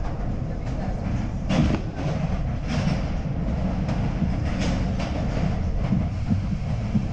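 R62A subway train on the 7 line running at speed, heard from inside the car: a steady rumble of wheels on rail broken by several sharp clacks from the track, the loudest about one and a half and four and a half seconds in.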